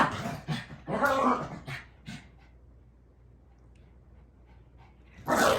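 Dogs playing: a few loud, rough vocal bursts in the first second and a half, a quieter stretch, then another loud burst near the end.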